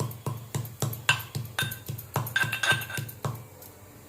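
Pestle pounding tulsi (holy basil) leaves in a mortar to crush out their juice. The strikes are rapid and even, about four a second, each with a dull thump and a short ringing tone, and they stop a little after three seconds in.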